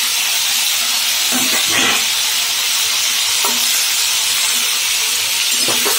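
Steamed cauliflower stalks and leaves sizzling in hot oil in a metal wok, a steady frying hiss, with a few brief sounds from the pan about two seconds in and near the end.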